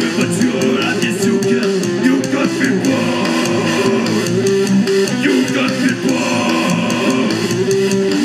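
Live rock band playing loud: electric guitars and bass over a drum kit, with a singer's voice on the microphone.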